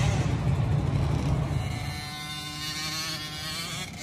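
Small kids' motocross bike engines running on a dirt track: loud at first, easing off after about two seconds, leaving engines revving up and down further off.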